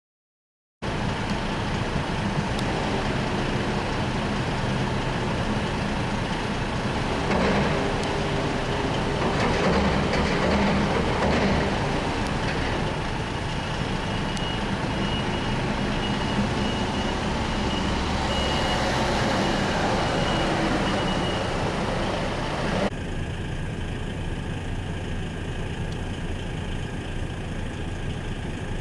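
A heavy diesel truck engine running steadily. The sound drops abruptly to a lower level near the end.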